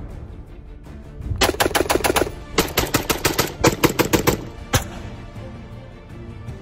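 Two quick strings of gunshots, several shots a second, then one last single shot, over background music.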